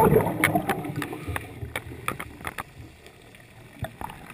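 Underwater sound of a scuba diver's exhaled regulator bubbles gurgling and fading out over the first second or so, followed by a quieter stretch of scattered sharp clicks.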